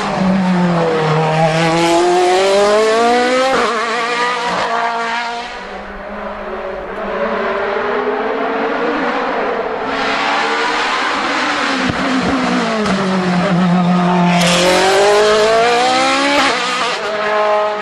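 Group E2-SC sports-prototype race cars accelerating hard uphill past the microphone, one after another. Each engine revs high with a steeply rising pitch broken by quick upshifts. The first car fades away about six seconds in, and the next one climbs through its gears from about ten seconds in.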